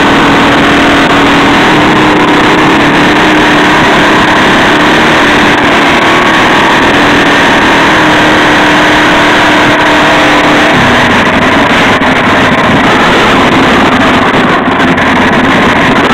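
Mini bike's small engine running steadily under way, with heavy wind noise over the microphone; the engine note shifts about eleven seconds in.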